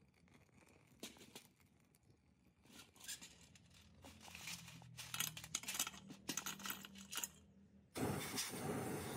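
Scattered light clicks and clatter of parts being handled in a workshop. Near the end a steady hissing noise starts abruptly and keeps going.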